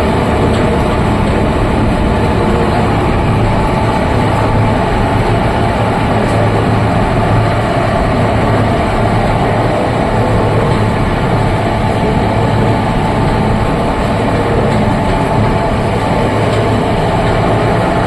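Oil expeller (screw oil press) running: a loud, steady mechanical drone with a strong low hum.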